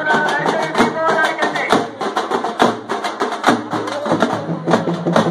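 Procession drums beating a fast, steady rhythm of sharp strokes, about five a second, with voices of the crowd mixed in.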